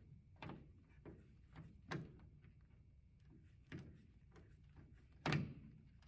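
A few scattered knocks and clunks, the loudest a heavier clunk about five seconds in.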